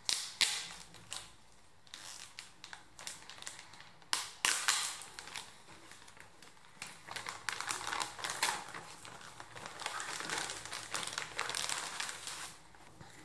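Clear plastic kit bag crinkling and rustling as hands handle and open it, with sheets of paper rustling as they are drawn out. Many sharp crackles come in irregular clusters, busiest in the second half, and stop just before the end.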